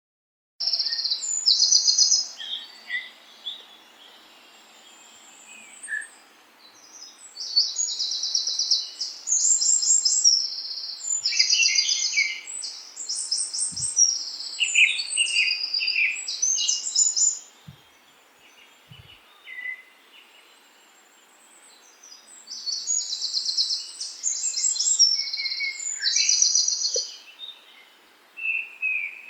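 Songbirds singing in rapid, high chirping trills, coming in several bouts with lulls between, over a faint steady hiss. The sound starts after a brief silence at the very beginning.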